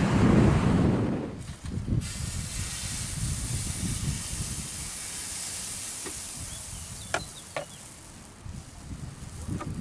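Wind buffets the microphone for the first second or so, then a steady sizzling hiss from a pancake of mashed banana and egg frying in a pan on the stove. Two light taps come about two-thirds of the way through.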